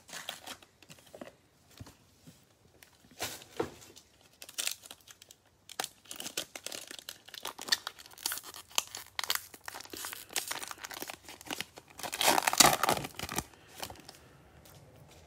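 A foil trading-card pack wrapper being crinkled and torn open, with scattered crackles and a longer, louder tearing rip about twelve seconds in.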